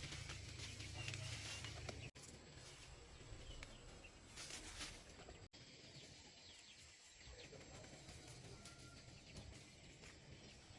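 Faint outdoor ambience: a low steady hiss with a few soft rustles, cutting out briefly twice. A single short high chirp comes near the end.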